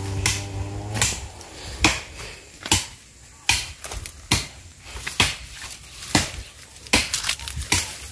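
Footsteps through dry undergrowth, twigs and dry stems snapping and crackling underfoot every half second or so at an uneven pace. A steady hum sounds for about the first second, then stops.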